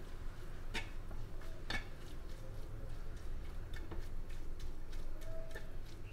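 A spoon stirring instant noodles in a metal pan, scraping and knocking against the pan with a few sharp clicks at uneven intervals.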